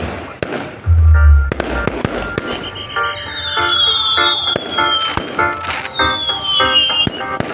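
Fireworks going off: repeated sharp bangs and crackles, with a heavy low boom about a second in, over background music.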